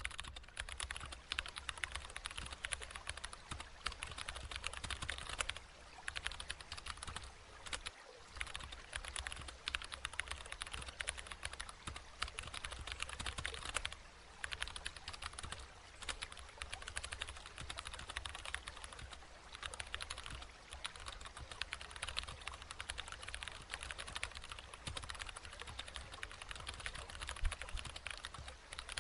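Computer keyboard typing: a fast, continuous stream of key clicks with a few brief pauses.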